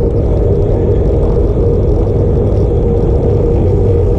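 Wind rushing over a camera microphone while cycling at speed: a loud, steady rumble with a constant hum running under it.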